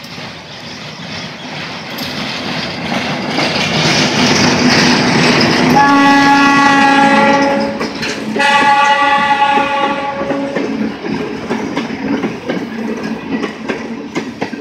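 ALCO RSD-16 diesel locomotive approaching, its engine growing steadily louder, then two long horn blasts about six and eight seconds in. Afterwards the boxcars roll past with wheels clattering over the rail joints.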